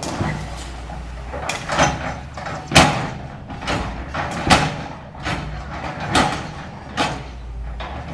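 CAT 325L hydraulic excavator demolishing a building: its diesel engine runs with a steady low hum under about ten sharp crashes of breaking concrete and falling debris. The loudest crash comes about three seconds in.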